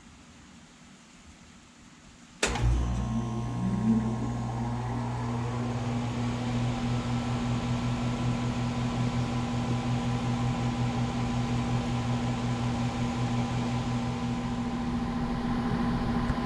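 A 2019 3-ton Bryant Preferred Series air conditioner's outdoor unit starting up. It kicks on suddenly about two and a half seconds in with a low hum, rises in pitch briefly as it comes up to speed, then runs steadily. The owner thinks it may have an LG scroll compressor.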